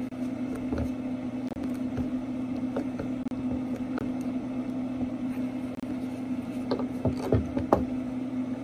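Steady motor hum from a running Traeger pellet grill, with a few short knocks near the end as the hydraulic crimper is worked and set down on the deck.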